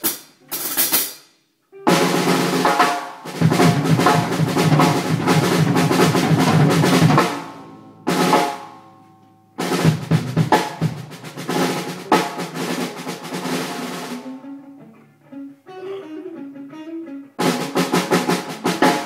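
Rock band warming up on a drum kit and electric guitars: loose drum fills and rolls with cymbal crashes, guitar and bass chords ringing out and dying away between them, and a fast run of drum strokes near the end.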